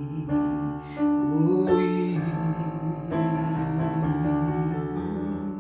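Slow worship-song accompaniment on keyboard, with held chords that change about three times and no singing in between.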